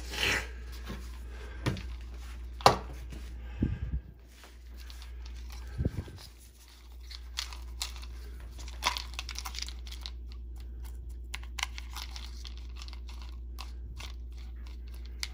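A small paintbrush scrubbing sewing-machine motor carbon brushes in foamy degreaser in a plastic bowl, making light scraping and many small clicks as the brushes knock against the bowl. There is a sharp click about two and a half seconds in and a couple of knocks around four and six seconds.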